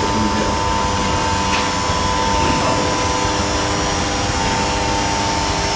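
Steady drone of machinery with a constant hum running through it.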